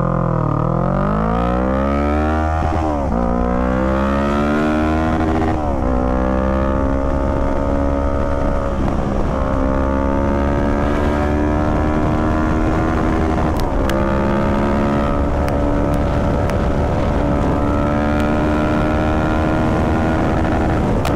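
Kawasaki Z650 parallel-twin engine at full throttle, accelerating hard from near standstill to about 160 km/h. Its pitch climbs steadily and drops sharply at four upshifts, about 3, 6, 9 and 14 seconds in, and each climb after a shift is slower than the last.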